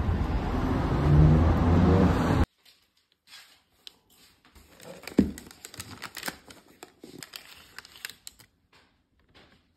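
A steady rush of outdoor noise for about two and a half seconds, cutting off abruptly. Then white paper wrapping crinkling and rustling in small clicks as cheese is unwrapped on a table, with one soft thump about five seconds in.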